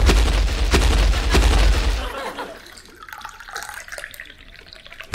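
Tea poured from a pot into cups, a liquid splashing and trickling sound, under a loud low rumble that drops away about two seconds in.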